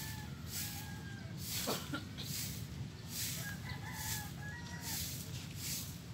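Stiff broom sweeping a dirt yard, a swishing stroke about every second. A rooster crows twice, and there is one sharper knock or scrape about a second and a half in.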